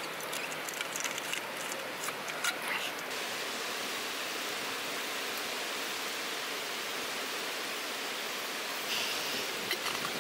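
Clinks and clicks as the cap of a metal water bottle is unscrewed, then a steady stream of water pouring from the bottle into a small metal pan for several seconds.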